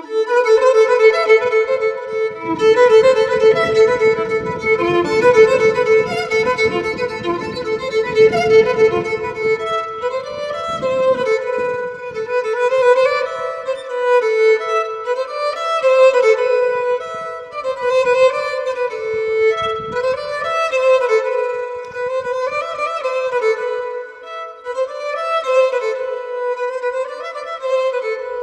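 Background music led by a violin playing a slow melody of held, sliding notes.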